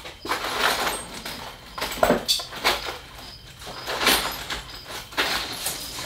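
Small bike parts and tools being handled and rummaged through: irregular rustling and clattering with a few light metallic clinks, as spacers are searched out for the bottom bracket.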